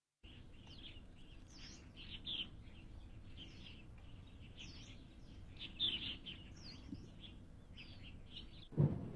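Small birds chirping, many short high calls and quick sweeping notes scattered throughout, over a faint steady outdoor hiss. A louder, lower sound comes in just before the end.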